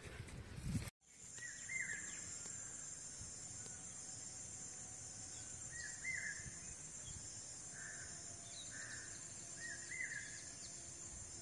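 Rural field ambience: a steady high-pitched insect drone, with a bird repeating the same short call about every four seconds and a few softer calls between. It begins after a brief dropout about a second in.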